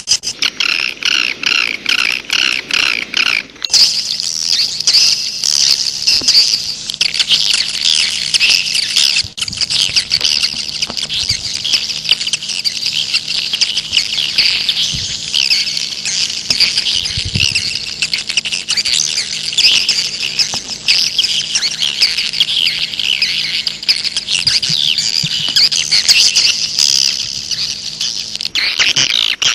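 A flock of swiftlets twittering and chirping densely and without pause: a swiftlet lure call recording. The first few seconds hold a different, evenly repeated call; after that a faint steady low hum runs under the chirping until near the end.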